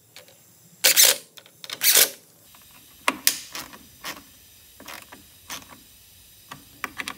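Socket ratchet clicking in short bursts, mixed with knocks on the plastic blower housing, as its bolts are run down. The two loudest bursts come about a second apart, followed by scattered fainter clicks.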